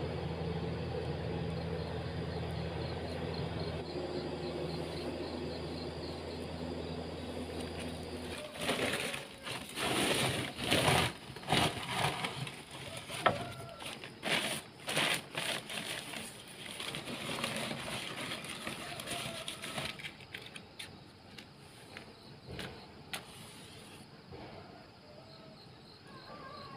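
A steady low machine hum that stops suddenly about eight seconds in, then irregular rustling and crackling of newspaper being handled and pushed into the firebox to light the fire under the paddy pan.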